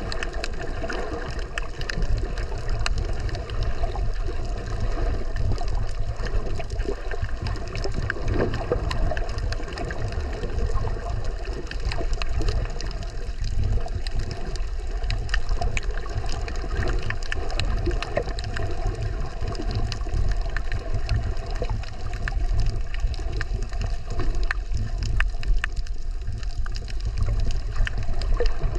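Underwater ambience heard through a submerged camera: a steady, heavy low rumble of moving water with many faint scattered clicks and crackles over it.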